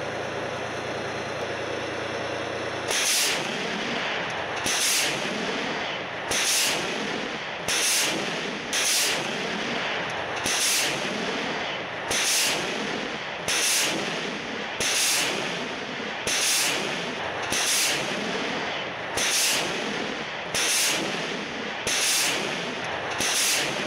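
TOS-1A Solntsepyok heavy flamethrower system firing a ripple salvo of rockets: about fifteen sharp launch whooshes, roughly one every one and a half seconds, beginning about three seconds in. Before the salvo its tank-chassis diesel engine runs steadily.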